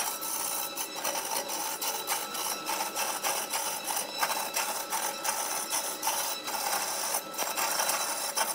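Handheld turning chisel cutting a wooden blank spinning on a wood lathe: a continuous scraping cut with irregular clicks and chatter.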